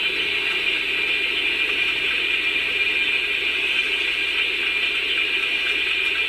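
Steady steam hiss played by the onboard DCC sound decoder of a Bachmann OO9 Baldwin model locomotive through its small loudspeaker, with the air pump effect just switched on.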